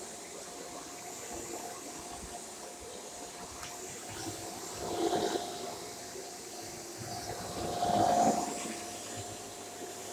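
Shark corded bagless upright vacuum cleaner running with a steady whine, swelling louder twice, about halfway through and again a few seconds later, as it is pushed over the floor.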